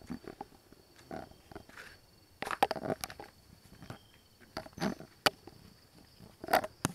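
Irregular crunching steps and sharp clicks from handling a handheld camera while walking, over a faint steady high whine.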